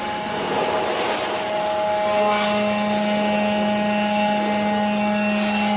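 Hydraulic press for forming stainless steel pans running, a steady machine hum with a whine above it. A stronger, lower hum sets in about two seconds in as the ram moves down.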